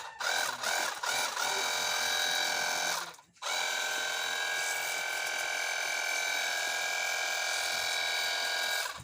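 Electric pressure washer running with a steady, high motor-and-pump whine, cutting out for about half a second around three seconds in and starting again, then stopping just before the end.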